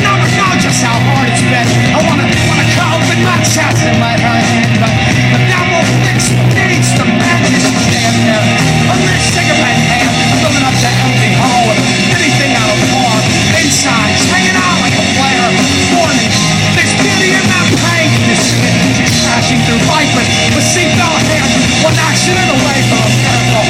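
Loud rock band music played continuously, with no spoken words.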